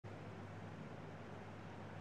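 Faint room tone through the microphone: a steady hiss with a low hum.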